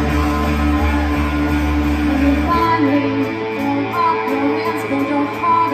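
Live rock band playing amplified through a venue PA: electric guitar, bass and drums. The low end changes about two and a half seconds in, as the deep bass gives way to a higher bass note.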